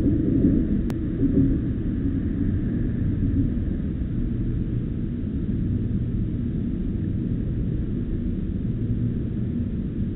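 Steady low rumble, a little louder in the first second or two, with one faint click about a second in.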